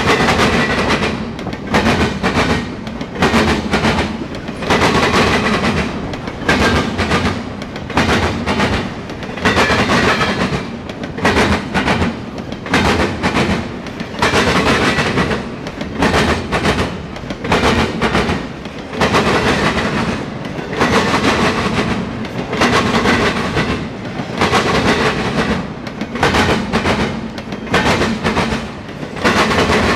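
Double-stack intermodal freight cars rolling past close by, their steel wheels clattering on the rails in a loud, rhythmic clickety-clack that surges about once a second.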